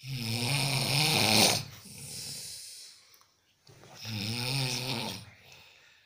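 A man snoring: two long, loud snores, the first at the start and the second about four seconds in, each trailing off into a softer breath out.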